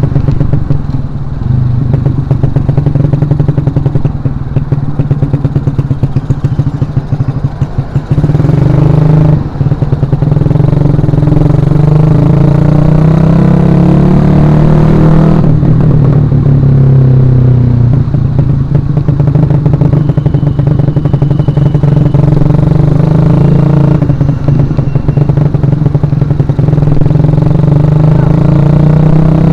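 Suzuki Shogun Axelo R 2011's single-cylinder four-stroke engine running under way. Its note climbs as the bike accelerates and drops suddenly at a gear change about halfway through, then runs on more steadily.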